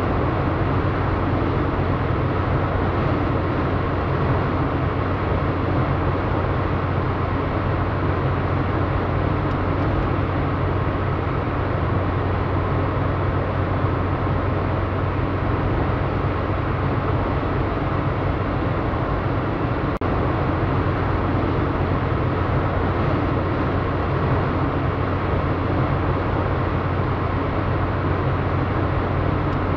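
Steady road noise heard from inside a car at highway speed: tyre and wind noise with a low engine hum underneath, unchanging throughout.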